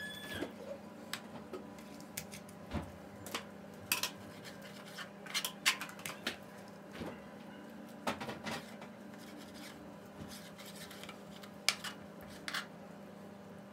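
Chef's knife slicing raw chicken breast into strips on a plastic cutting board: irregular clicks and taps of the blade striking the board, with soft rubbing as it draws through the meat.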